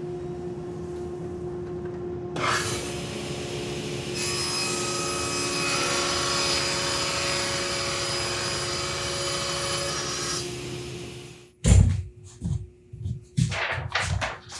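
Table saw running and cutting plywood: the blade's hiss comes in about two seconds in as the sheet is fed through, holds for about eight seconds, then drops away while the motor keeps spinning. Near the end come a loud thump and several knocks of the cut boards being handled.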